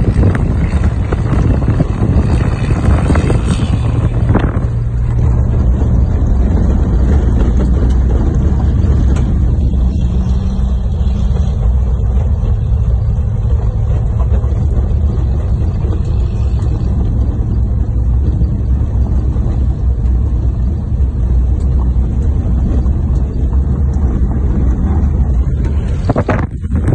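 Wind buffeting the microphone through an open window of a moving vehicle, over a steady low drone of engine and road noise.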